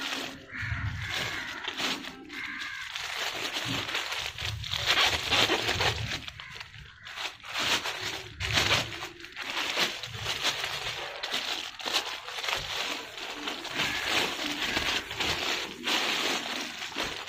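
Thin plastic bag and plastic glove crinkling and rustling as a mushroom substrate block is worked into the bag, irregular and continuous, with a few dull bumps from the block being handled.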